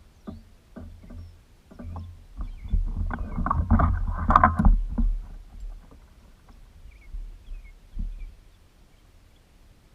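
Irregular knocks and thumps of handling in a small fishing boat, over a low rumble. Between about three and five seconds in, a louder stretch of rustling and clattering rises and ends in a sharp knock.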